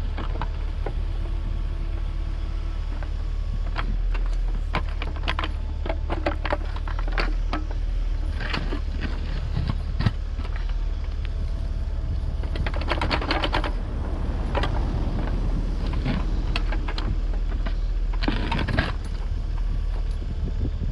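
Mini excavator's diesel engine running steadily while the bucket digs, scraping and clattering against stones and frozen soil in many short knocks, with two rattly bursts of scraping in the second half.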